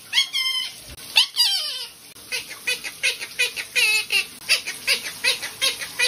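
Monk parakeet (quaker parrot) calling: a few downward-gliding squawks in the first two seconds, then a quick run of short, repeated chirps, about three or four a second.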